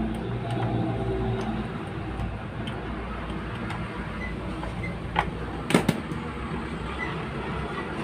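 Screwdriver work on a finned viscous radiator fan clutch: light metal ticks and clicks, a sharp knock about five seconds in and a louder double metal clank just after. A steady low rumble, like a running vehicle, sits underneath.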